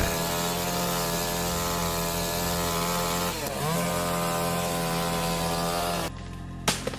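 Chainsaw running at high revs with a steady whine; its pitch dips briefly about halfway through and recovers. It cuts off abruptly about six seconds in, followed by a few sharp knocks near the end.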